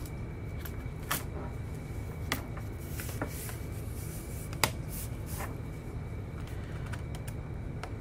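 Gigabyte Aero 15 laptop's metal bottom cover being laid on the chassis and pressed down into place by hand: scattered clicks and taps as it seats, the loudest a little past halfway.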